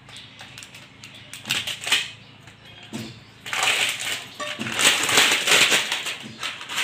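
Clear plastic wrap crinkling and crackling as it is pulled off a non-stick frying pan, louder from about halfway in. A few light clicks and knocks of the pan and packaging come before it.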